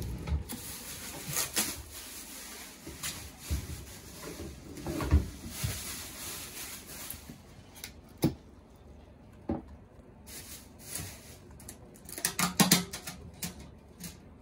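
Cardboard box rustling and knocking as a cat moves about inside it on packing paper. There are scattered single knocks, and a quick cluster of them near the end.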